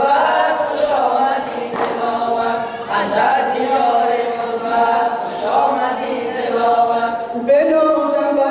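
A group of boys singing a sorud, an anthem-style group song, in unison, with long held notes and a new phrase starting near the end.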